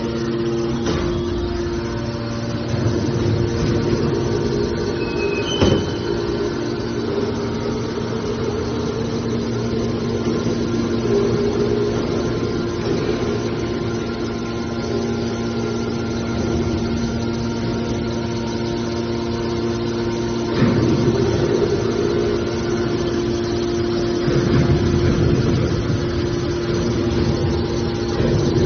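Hydraulic metal baler running, its pump and motor giving a steady hum. A sharp knock comes about six seconds in, and the machine grows louder and rougher for a while around twenty and again around twenty-five seconds.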